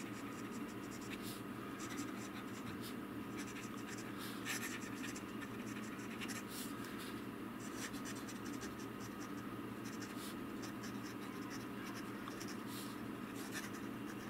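Fine nib of a Platinum fountain pen scratching lightly across paper while writing, in short irregular strokes, over a steady low hum.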